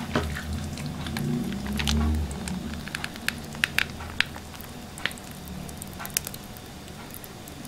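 Chopped salad being worked in a plastic bowl while mayonnaise is squeezed over it in thin lines: soft squishing with scattered light clicks and taps in the middle seconds. A low hum runs through the first two seconds.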